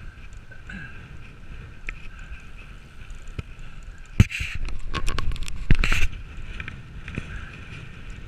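YT Capra full-suspension mountain bike rolling over rough grass, tyres rumbling, with a louder run of knocks and rattles from the bike over bumps about four to six seconds in.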